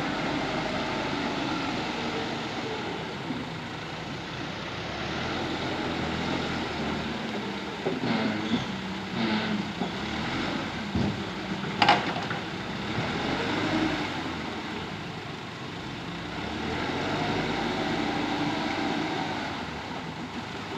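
JCB backhoe loader's diesel engine running under varying load, rising and falling. Several knocks a little past the middle, and one sharp metallic clank.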